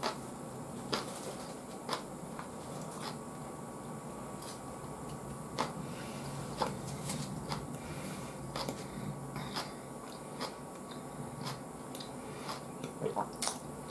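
Close-miked chewing of grilled eel: short, irregular wet mouth clicks and smacks over a steady low background hum.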